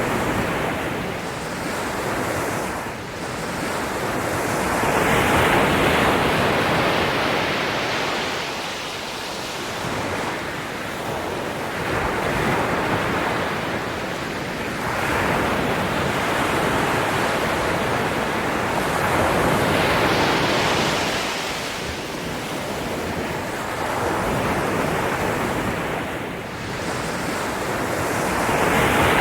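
Ocean waves breaking and washing on a shore, a steady rush that swells and ebbs every few seconds.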